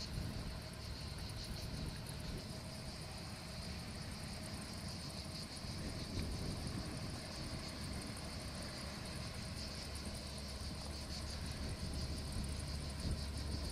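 Steady, high-pitched chirring of insects in the background, over a low, steady rumble.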